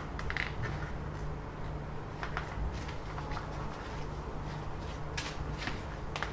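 A few scattered light clicks and ticks over a steady low hum.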